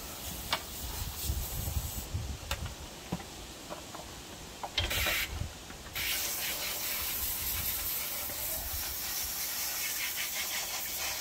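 Garden hose spray nozzle washing out a fertilizer distributor hopper and its metal gear plate. A few light clicks and knocks and a short burst of spray in the first half, then a steady hiss of spraying water from about six seconds in.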